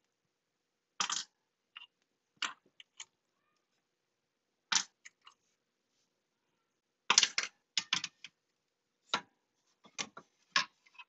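Metal binder clips being unclipped from a 3D printer's glass print bed and the glass plate handled: an irregular series of short, sharp clicks and clacks, busiest in the second half.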